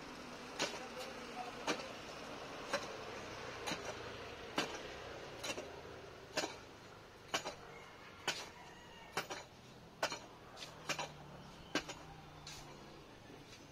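A digging tool striking hard, stony ground in steady, sharp blows, about one a second: a foundation trench being dug out by hand.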